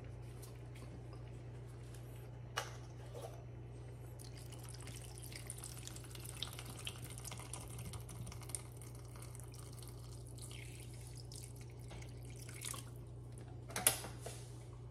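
Coconut water poured from a carton into a pot of chicken, a thin steady stream splashing into the liquid. There is a knock about two and a half seconds in and a sharper clack near the end, over a steady low hum.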